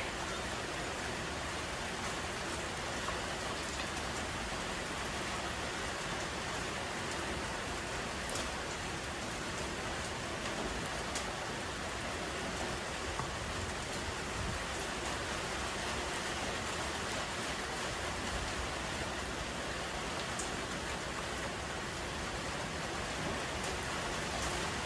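Steady, even hiss like falling rain, with a few faint ticks scattered through it.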